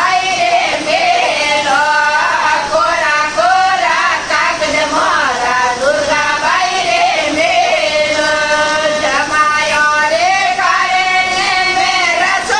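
Women singing a Marwari jamai geet, a folk wedding song of teasing verses (gaali) addressed to the son-in-law, with long held, gliding notes.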